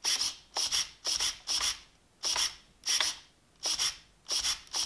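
RC car's steering servo whirring in short bursts as the steering is flicked back and forth, about eight times, most bursts in two quick parts. It responds without delay.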